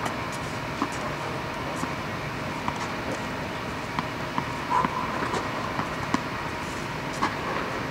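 Steady air-handling noise in an inflated tennis dome, with a faint steady hum. Tennis balls are being bounced and struck by racket about once a second, each a sharp, echoing pop.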